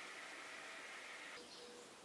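Near silence: faint outdoor background noise, with no distinct sound event.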